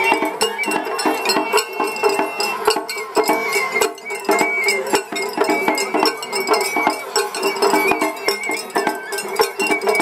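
Japanese festival hayashi from a float: a high bamboo-flute (shinobue) melody of held, stepping notes over repeated taiko drum strikes.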